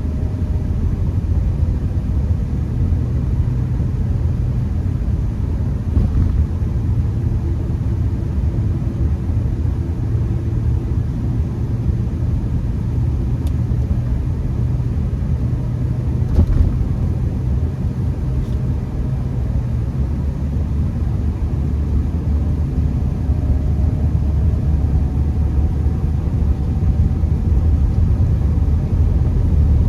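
Steady low rumble of a Honda Accord's engine and tyres on a snowy road, heard from inside the cabin, with a faint hum that rises slightly near the end and a single brief click about halfway through.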